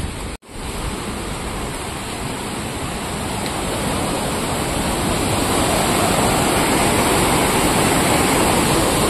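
Turbulent river water rushing and churning into whitewater below a concrete structure, a steady roar of water that grows louder over the first few seconds. There is a brief break to silence about half a second in.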